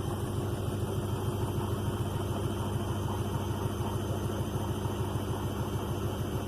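Bauknecht WA Eco Star 61 washing machine in its final spin with a load of work clothes, a steady loud hum with a fast, even throb. The uploader calls the spin rather 'angry'.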